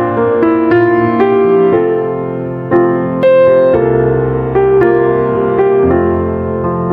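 Slow instrumental piano music: a melody of single struck notes, a new one about every half second, over low held bass notes.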